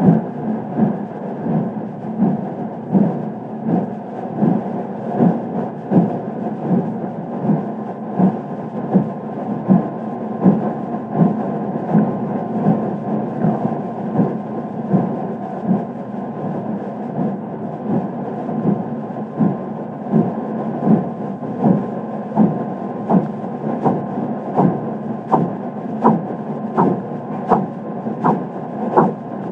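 Korotkoff sounds from a blood-pressure cuff recording: a regular pulse of dull thumps, about four every three seconds, over a steady hiss, the thumps growing sharper and louder near the end. In this elderly patient the sounds stay audible down to 0 mmHg cuff pressure, which the uploader suspects is due to strong arteriosclerosis.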